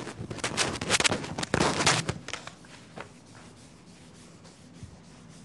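Felt chalkboard eraser rubbing across a chalkboard in rapid back-and-forth strokes, stopping a little over two seconds in. A single light knock follows about a second later.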